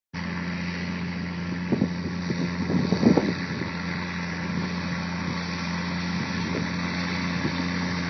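Steiger 535 tractor's diesel engine running steadily, pulling a moldboard plough and seeder, with a few brief knocks or rattles about two and three seconds in.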